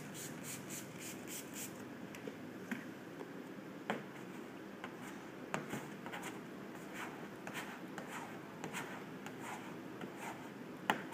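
A hand spray bottle of soapy water spritzes in a quick run of short hisses over the first couple of seconds. Then a squeegee scrapes and rubs over wet paper premask laid on a car hood, pressing the vinyl stripe down, with a few sharp ticks.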